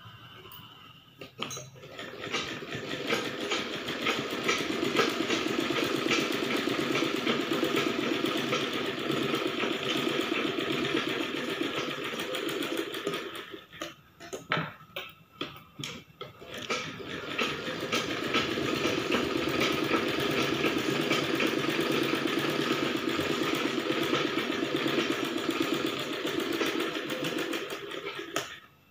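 Domestic sewing machine running, stitching a seam with a fast, even clatter. It stops for about three seconds midway, with a few clicks, then runs again and stops abruptly near the end.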